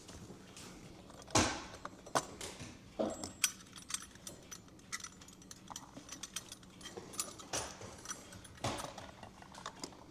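Scattered small metallic clicks and taps of brass clock wheels and parts being handled and fitted into the plate of a Gustav Becker clock movement, with a sharper knock about a second and a half in.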